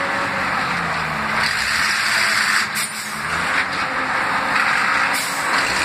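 Stuck truck's engine running under load while its rear wheels spin in loose gravel and fresh tar, a rushing noise that swells a few times.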